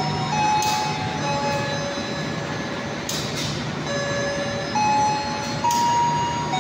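Passenger train carriages rolling slowly over curved track and switches: wheels clacking over the rail joints a few times, with high steady squealing tones from the wheels that jump from one pitch to another every second or so.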